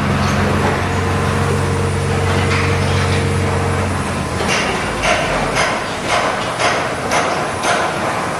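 Heavy industrial machinery running with a steady low hum that stops about four seconds in. A regular beat of short, sharp mechanical noises follows, about two a second.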